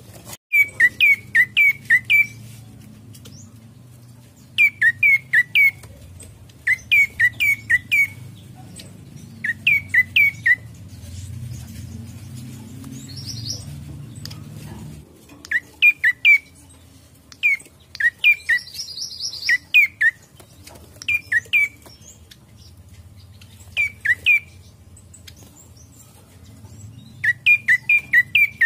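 Prenjak coki singing: quick bursts of three to six notes, each note dropping in pitch, repeated every couple of seconds, with a longer pause around the middle. A fainter, higher trill comes twice between the bursts.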